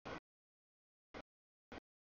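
A freight train rolling past a grade crossing in the rain, heard only as three brief bursts of noise with complete dropouts of the audio between them.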